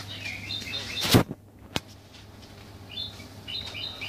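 Short high chirps repeating about twice a second over a steady low hum. A sharp knock comes a little over a second in, followed by a brief quieter gap and a small click, before the chirping resumes.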